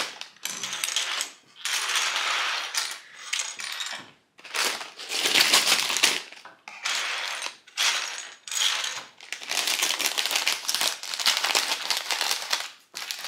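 Clear plastic bag of small plastic building-block pieces crinkling while it is handled and cut open, with the pieces inside rattling and clinking against each other in irregular spurts.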